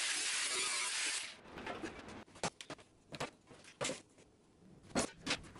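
Angle grinder dressing the edge of an aluminium sheet, a steady hiss that stops about a second in. Then several sharp metallic knocks as sheet metal is handled.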